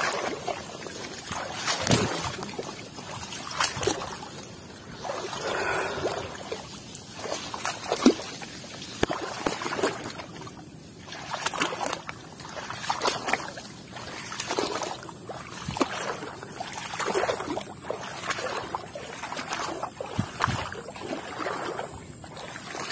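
Irregular rustling and snapping of brush with small splashes and drips of water at a shallow, weedy pond edge, in bursts every second or two with a few sharp snaps.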